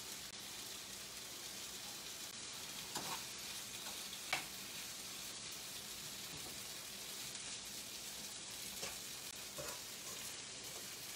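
Spiced chickpeas sizzling in a frying pan with a steady hiss, stirred with a metal spoon that clinks against the pan a few times, loudest a little over four seconds in.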